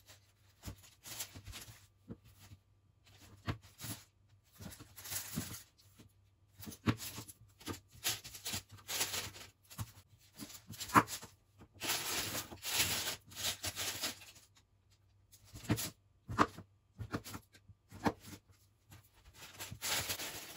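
Baking paper rustling and crinkling in short, irregular bursts as a knife cuts a chocolate-topped peanut slab into pieces on it, with a few sharp taps of the blade.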